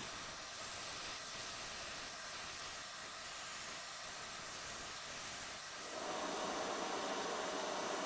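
Hot air rework station blowing a steady hiss of air under a laptop board, heating the solder of a small fan connector to free it. About six seconds in the airflow sound fills out and gets a little louder.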